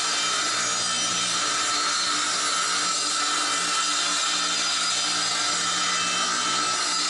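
Handheld electric circular saw ripping lengthwise through a 3/4-inch-thick 1-by-12 board, the blade cutting steadily with a constant motor hum.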